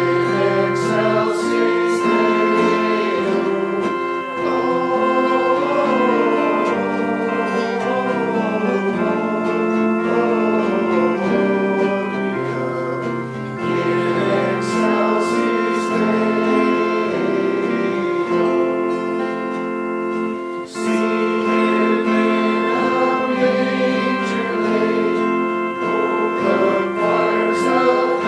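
Organ music playing long held chords, with a melody line moving above them.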